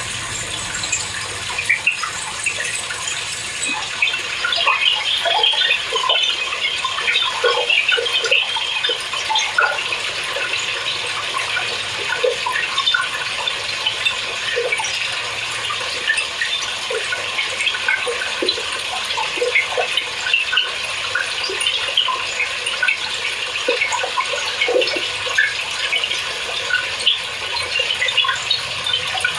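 Speed Queen TC5 top-load washer filling with water on its normal eco cycle: a steady rush of water into the tub with many small splashes throughout.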